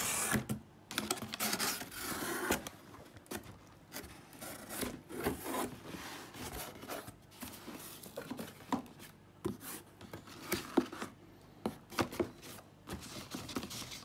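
Cardboard box being opened by hand: flaps folded back and paper inserts pulled out, giving irregular rustling and scraping of cardboard and paper with scattered short knocks.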